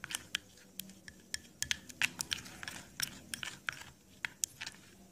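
A spoon stirring a thick creamy paste in a ceramic bowl: quick, irregular clicks and scrapes against the bowl, a few a second, stopping shortly before the end.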